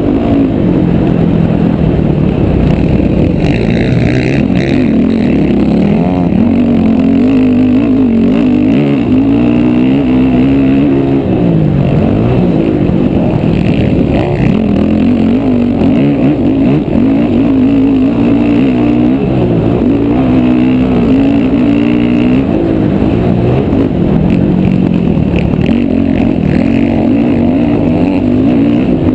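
Motocross bike's single-cylinder engine at racing speed, close up from a helmet-mounted camera. It revs up and drops back again and again through gear changes.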